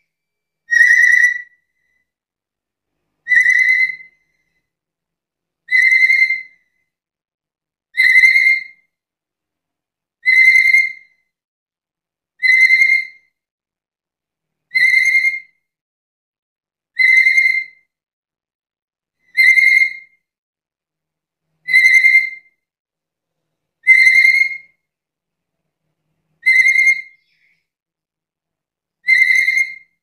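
Black-capped lory giving a loud, clear whistled call over and over, one short call about every two and a half seconds, thirteen in all.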